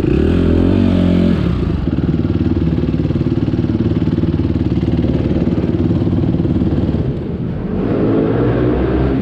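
Motocross bike engine running close up, revving briefly at the start, then holding a steady lower speed. It drops off for a moment and revs again near the end.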